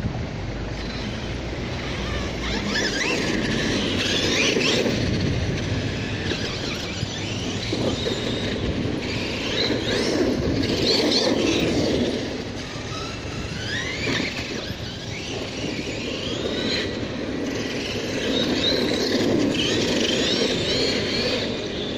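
Redcat Terremoto V2 RC monster truck driving on its Turnigy XK-4074 2000KV brushless motor: a high whine that rises and falls in pitch with each burst of throttle, over the rough rumble of its tyres on paving blocks.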